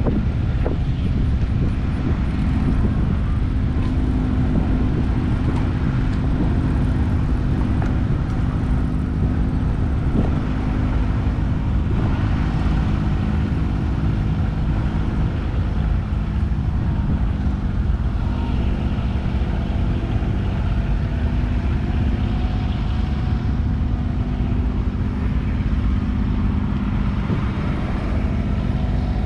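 An engine running steadily, with a low rumble of wind on the microphone.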